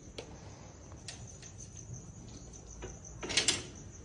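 Crickets chirping steadily in the background, with a few faint taps and a short rustling scuff about three seconds in.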